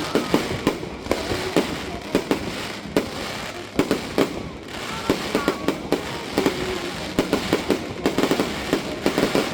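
Fireworks going off in quick, irregular succession, many sharp bangs, some coming in tight clusters.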